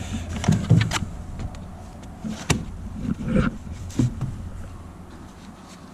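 Tow-truck wheel straps and hardware being handled in a truck toolbox: a handful of scattered knocks and clicks over a low rumble.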